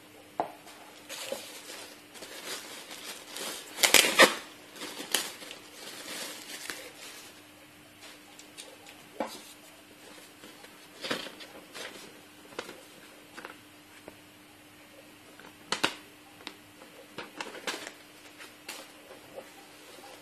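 Objects being handled: irregular clicks, taps and short rustles, loudest in a cluster of clatter about four seconds in, over a faint steady hum.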